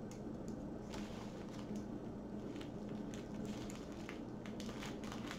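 Faint rustling and light taps of a plastic-wrapped diamond painting kit being handled on a table, over a steady low hum.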